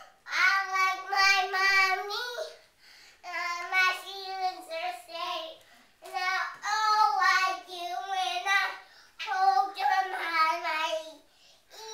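A two-and-a-half-year-old girl singing in a high voice, in four phrases with short pauses between them.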